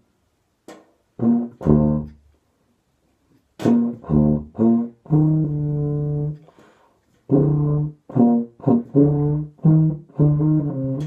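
A valved low brass horn played solo: a phrase of short, detached notes with gaps between them, and one longer held note a little past the middle.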